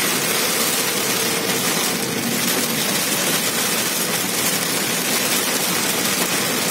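Heavy rain hitting a moving car's roof and windscreen, mixed with tyres hissing on the waterlogged road, heard from inside the car as a steady, dense wash of noise.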